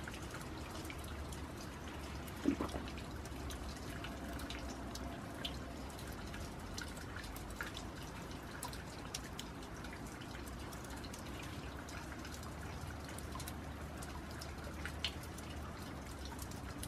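Steady light rain with scattered drips and one louder knock about two and a half seconds in.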